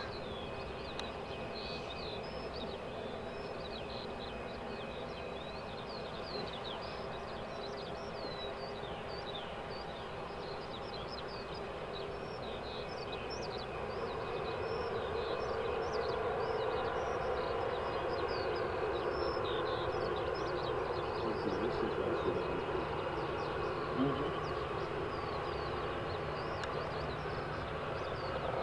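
Boeing 737-800's CFM56 jet engines running at low power as the airliner rolls slowly after landing: a steady distant hum that grows louder about halfway through. Many short high chirps run throughout.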